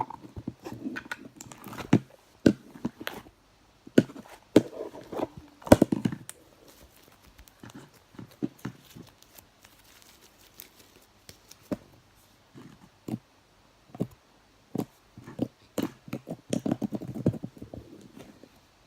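Slime being squeezed and stretched by hand: irregular sticky clicks, pops and squelches, coming in busier clusters in the first few seconds and again near the end.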